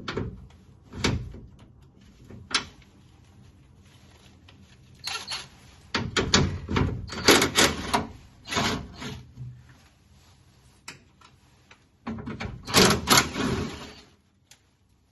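Metal clunks, knocks and rattling inside a 1967 Mustang's steel door shell as the window glass and regulator assembly is worked loose and lifted out. A few single knocks come first, then two longer spells of clattering, about five and twelve seconds in.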